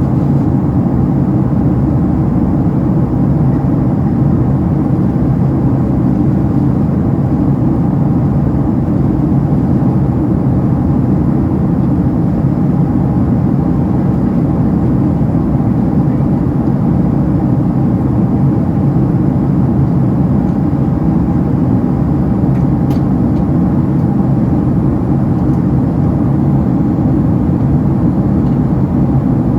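Boeing 767-300ER cabin noise: the jet engines and rushing air heard from inside the passenger cabin as a loud, steady low rumble with a faint steady hum above it.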